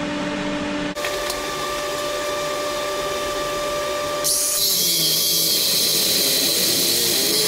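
Cordless angle grinder running, its motor giving a steady whine. About four seconds in, the disc bites into steel and a loud hissing grind sets in over the whine.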